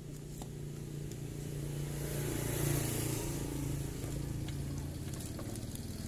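A motor vehicle engine running steadily, growing louder about two to three seconds in, with a few light clicks from handling the CDI wiring connector.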